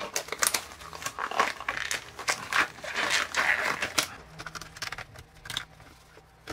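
Blue nitrile gloves being pulled on and handled: rubbery crinkling and rustling for about four seconds, then quieter with a few scattered light clicks.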